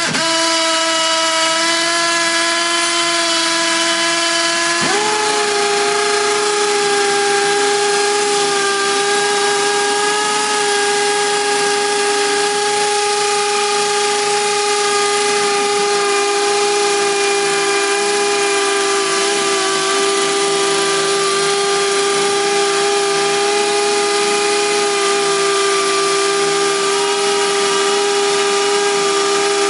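Two Makita 18V cordless hammer drill-drivers (BHP458 and BHP459) running together, drilling into a concrete block. Their motors give a steady whine at two pitches over a grinding noise. About five seconds in, one drill's pitch steps up, and then it holds steady.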